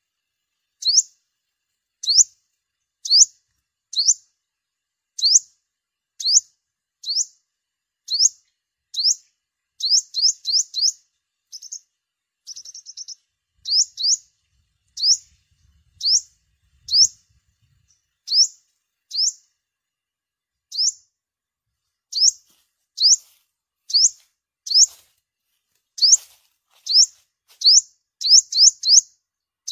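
Sunbird calling: sharp, high, hooked chips, mostly about one a second, now and then a quick run of three or four, with a short rapid trill about a third of the way through. Lure recording for trapping birds.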